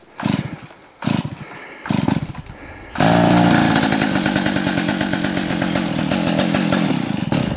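Small gasoline engine: three short bursts in the first two seconds, then it runs steadily at high speed from about three seconds in.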